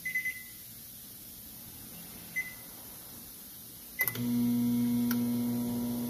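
Microwave oven keypad beeping three times as buttons are pressed, then a relay click and the oven starting up about four seconds in with a steady hum that carries on. It runs without tripping the breaker now that its door interlock switches have been replaced.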